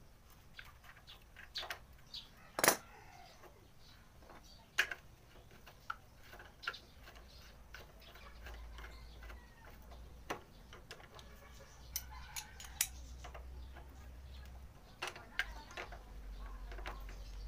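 Socket wrench and extension bar clicking and clinking against the rear shock's lower mounting bolt as it is fitted and tightened, in irregular sharp metallic knocks, the loudest about three seconds in.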